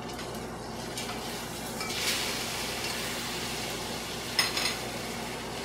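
Steak sizzling hard as it sears on high heat in a skillet, the pan smoking, with a wooden spoon stirring butter sauce in a second pan. The sizzle flares louder about two seconds in, and a brief sharper noise comes near the end.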